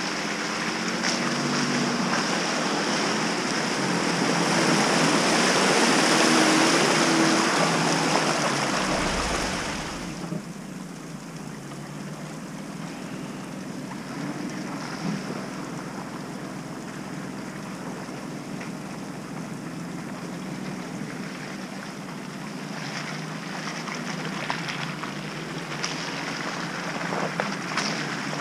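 Jeep Cherokee Trailhawk driving through a flooded mud hole: engine running under water churning and splashing around its tyres, loudest about six seconds in. About ten seconds in it drops abruptly to a quieter, steady wash of sloshing water and faint vehicle noise.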